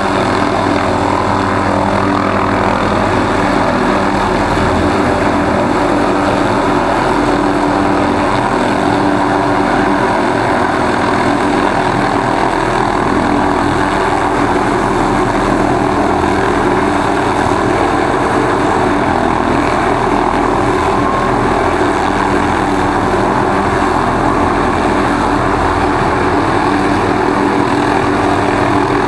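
MD 500-series turbine helicopter hovering close by, its main rotor and engine running steadily and evenly.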